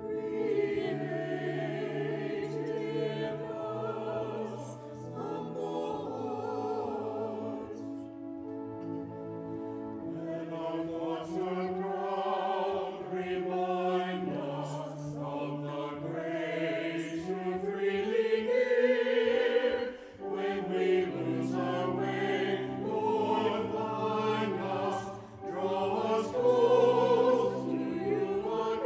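Small mixed church choir of men and women singing an anthem, with held low notes beneath the voices.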